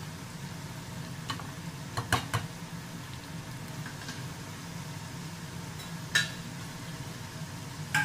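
Flour-coated potato fries sizzling steadily as they deep-fry in hot oil in a steel pan. A slotted metal spatula stirs them, clinking against the pan a few times about two seconds in and once near six seconds.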